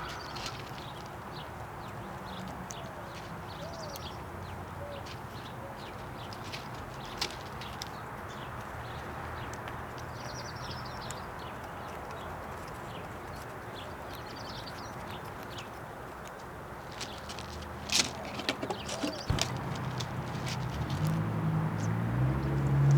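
Steady outdoor background hiss with faint, brief bird chirps a few times and scattered sharp taps, a cluster of them about three-quarters of the way in. A low droning hum builds near the end.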